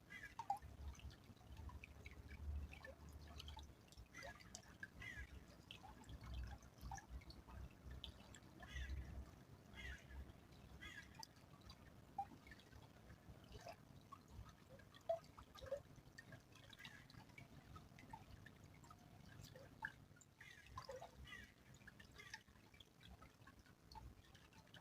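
A small stream trickling faintly, with irregular drips and plinks of water.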